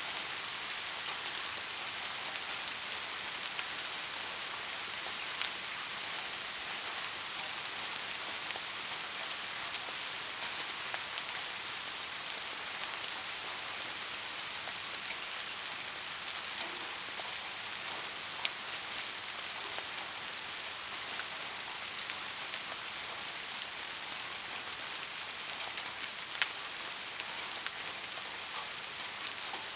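Steady soft rain falling, an even hiss with now and then a louder single drop ticking.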